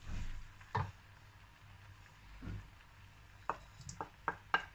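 Soft thuds of noodles being tossed in a wok. From about three and a half seconds in comes a quick run of sharp clinks, about three a second, as a spoon knocks and scrapes sautéed shrimp out of a bowl into the wok.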